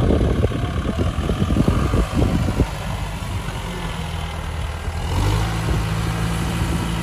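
Kubota M6040 tractor's diesel engine working hard with the tractor stuck in soft sand. A dense, rough low clatter for the first two to three seconds, then a steadier low engine hum that swells about five seconds in.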